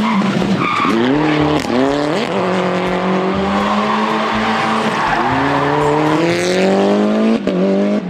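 Suzuki Swift rally car engine accelerating hard through the gears. Its pitch climbs, falls at each gear change and climbs again, with a steady stretch in the middle.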